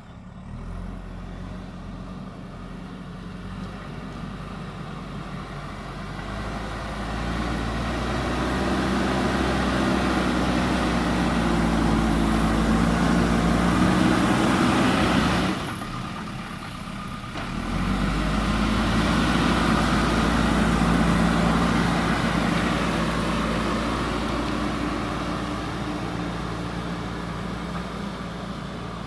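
JCB backhoe loader's diesel engine working under load, its revs and loudness building over several seconds. About halfway through it drops away sharply for a couple of seconds, then comes back up and slowly eases off.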